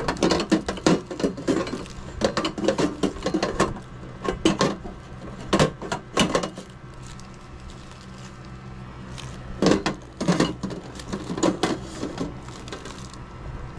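Metal pan supports of a two-burner gas stove knocking and clicking against the stainless-steel top and burners as they are set in place by hand, in irregular clusters of sharp clatters.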